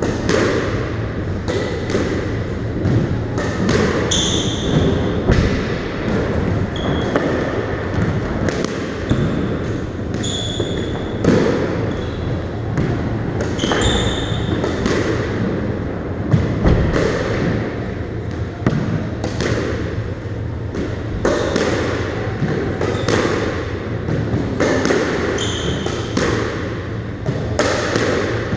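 Squash rally: the ball is struck by rackets and smacks against the court walls again and again at an irregular pace, each hit echoing in the bare court. Short high squeaks of shoes on the wooden floor come between the shots.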